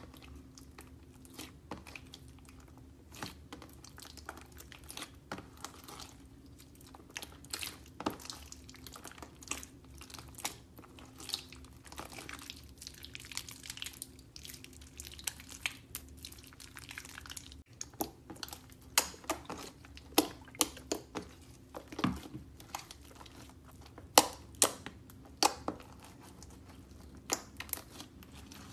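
Hands squishing, poking and stretching sticky slime, giving irregular wet clicks, crackles and pops. The pops grow louder and sparser in the second half, where a thicker pink slime is being pressed.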